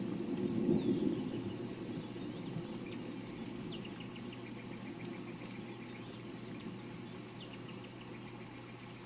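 Rain-and-birds ambience: a low rumble of thunder fades over the first couple of seconds under a steady high hiss, while small birds chirp and give quick trills several times.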